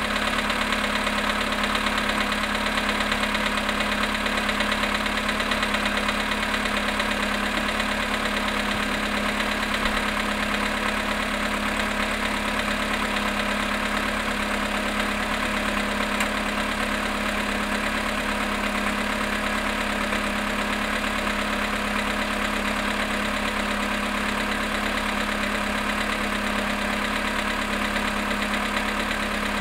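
Volkswagen Polo sedan engine idling steadily after a cold start at -5.5 °C, with a knock from the cold engine.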